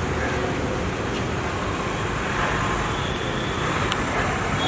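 Steady urban street traffic noise, an even rumble and hiss, with a single short click about four seconds in.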